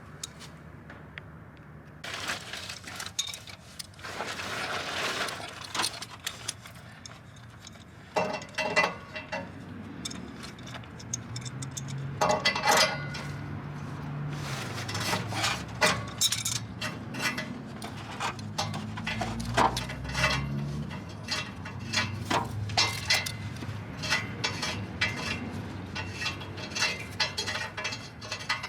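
Adjustable wrench clinking and scraping against the downstream oxygen sensor and exhaust pipe: a run of sharp metal clicks and scrapes as the sensor is worked loose and unthreaded.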